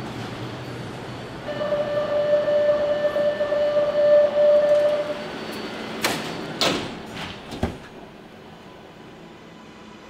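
Metro train door-closing warning: a steady tone sounds for a few seconds, then the sliding doors shut with three knocks, leaving the steady rumble of the carriage.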